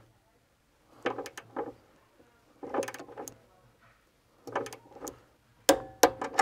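Wera click torque wrench ratcheting on a switch terminal bolt in four short bursts of clicks about a second and a half apart, with two sharper, louder clicks near the end.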